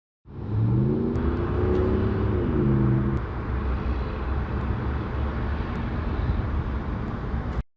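Motor vehicle engine pulling away, its pitch rising and holding, then dropping off about three seconds in, followed by a steady low driving rumble that cuts off abruptly near the end.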